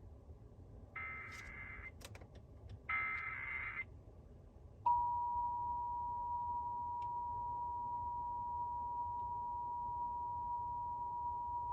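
Emergency Alert System SAME header: two short bursts of buzzy data tones about two seconds apart, then, about five seconds in, the EAS attention signal starts, a steady two-tone alert sound (853 and 960 Hz).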